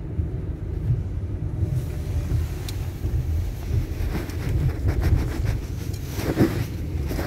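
Car pulling away and driving over a railroad crossing on wet pavement, heard from inside the cabin: a steady low engine and road rumble, with tyre hiss swelling about four seconds in and again near the end.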